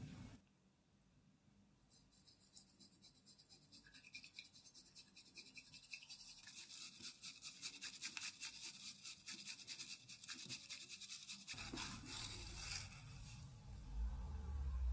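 Bamboo matcha whisk (chasen) beating matcha tea in a ceramic bowl: a rapid, even swishing of the tines through the liquid and against the bowl, starting about two seconds in and running for about ten seconds as the tea froths up. A low hum comes in near the end.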